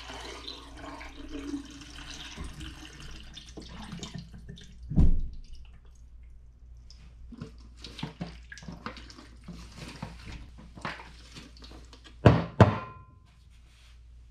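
Liquid poured from a glass beaker into a Paterson film-developing tank, splashing for about four seconds. A loud thump follows about five seconds in. Then comes the scattered knocking and sloshing of the tank being inverted to agitate the film, ending in two sharp knocks of the tank against the counter just after twelve seconds.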